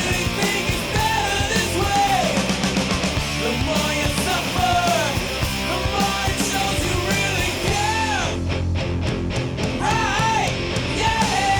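Background rock music with a shouted, punk-style vocal over guitars and drums; about eight seconds in, the band drops out briefly, leaving drum hits under the voice.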